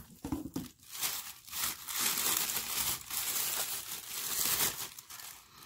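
Tissue paper crinkling and rustling as it is handled and pulled open to unwrap a small item.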